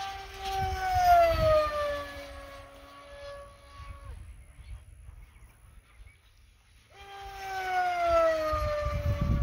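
Electric RC hotliner (Yuri Composites X-Plus with a Brotherhobby 3115 1200 kV motor turning a Powercroco 7x13 propeller on 6S) making two high-speed passes: a high motor-and-propeller whine that drops in pitch as the plane goes by. The whine cuts off abruptly about four seconds in, and the second pass builds up again near the end.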